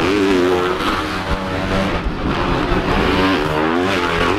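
Motocross dirt bikes racing through a corner, their engines revving up and down in pitch again and again as the riders work the throttle and shift.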